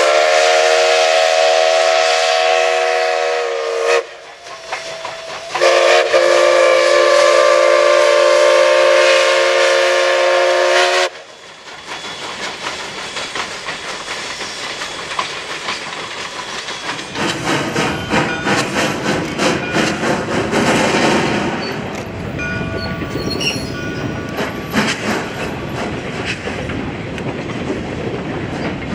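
Steam locomotive chime whistle blowing two long blasts, each a chord of several tones. Then a train rolling past, wheels clattering on the rails, growing louder about halfway through.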